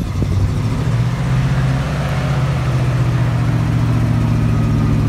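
An engine running steadily, its low hum broken into a rapid, even pulse of firing strokes.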